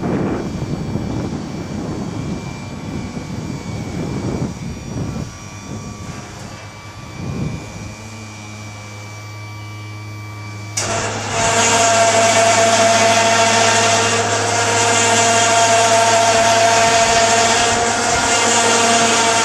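Motor-driven lift mechanism of a pop-up deck barbecue retracting. There is an uneven low rumble, then from about eight seconds in a steady low hum. About eleven seconds in, a loud steady mechanical whine with several fixed tones starts suddenly, as the hinged deck lid swings down over the opening.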